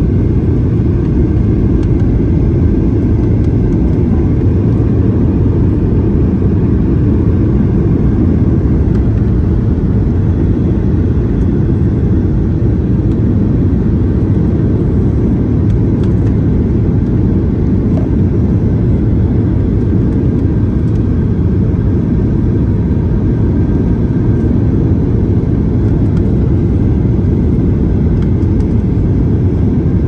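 Boeing 737-800 cabin noise, heard from a window seat over the wing: the CFM56 jet engines and rushing airflow make a steady, loud low rumble while the airliner is airborne on its approach pattern before landing.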